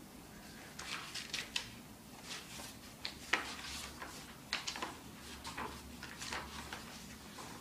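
Paper pages of a notebook being handled and turned by hand: a series of short, soft rustles and crinkles at irregular intervals.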